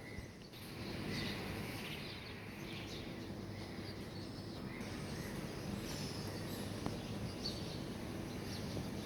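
Small birds chirping in short, scattered calls over a steady low background noise.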